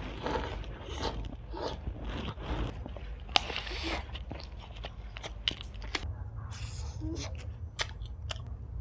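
Close-miked eating: a person biting and chewing Indian sweets, with irregular wet mouth clicks and smacks.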